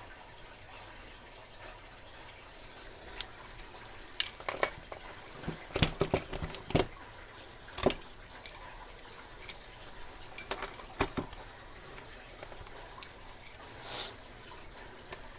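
Keys jingling and padlocks clinking against each other as they are handled: scattered metallic clicks and jingles starting about three seconds in.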